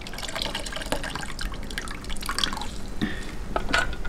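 Water dripping and splashing into a steel basin in irregular patters as wet handfuls of chopped bamboo shoot are squeezed out while being rinsed in fresh water.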